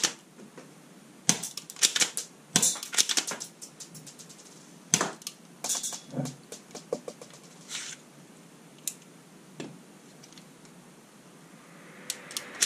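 Irregular sharp plastic clicks and rattles from a black plastic toy Tec-9-style bead-shooting pistol being handled and worked by hand, in quick clusters early on and sparser single clicks later.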